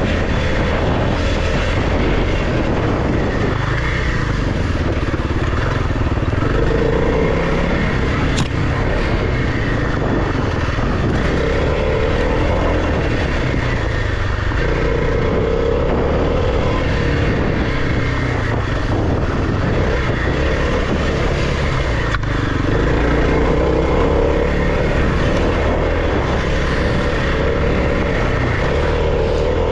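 Kawasaki KLX300 dirt bike's single-cylinder four-stroke engine running while being ridden, its note swelling and easing off every few seconds with the throttle, under a steady rush of wind noise. A single sharp tick sounds about eight seconds in.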